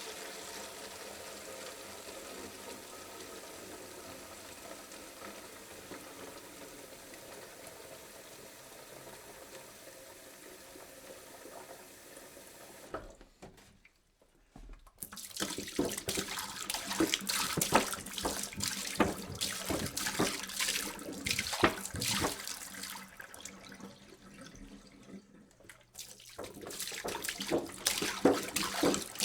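Water pouring into a jug. A steady pour slowly grows quieter and stops about halfway through. After a moment's silence a louder, splashier pour starts, eases off briefly and then picks up again near the end.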